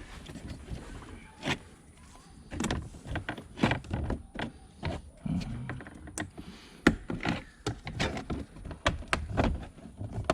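Plastic interior trim of a car's center console clicking, knocking and rattling as it is pried and unclipped by hand, in irregular sharp taps throughout.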